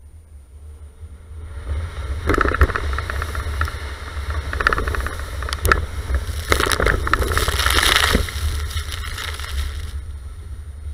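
Volvo XC90 SUV driving through deep puddles on a track, its wheels throwing up water that splashes and spatters against the body, over a low rumble of tyres and engine. The splashing comes in surges from about two seconds in, heaviest about two-thirds of the way through, and eases off near the end.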